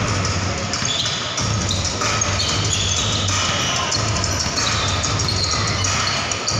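Basketball bouncing on a hardwood gym floor amid the steady din of a large indoor hall.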